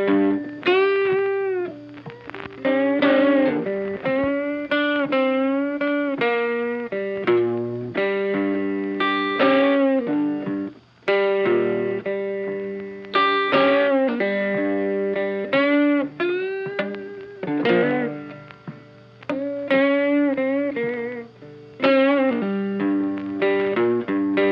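Music led by an electric guitar, with notes that bend and waver over a steady lower accompaniment.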